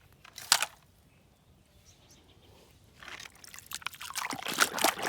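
A sharp knock about half a second in, then from about three seconds water pouring and splashing over a muddy plastic toy truck as it is rinsed.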